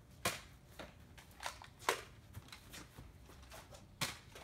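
A few short, sharp clicks and knocks with quieter ticks between them; the loudest comes near the end.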